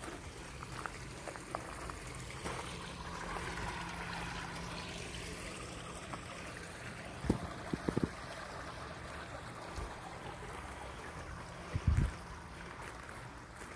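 Steady wash of gently running water. A few dull low thumps come a little past halfway, and another pair near the end.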